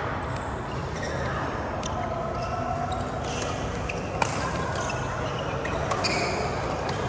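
Badminton rally: rackets striking a shuttlecock, with one sharp smack about four seconds in and lighter hits and shoe noises around it, over steady background noise.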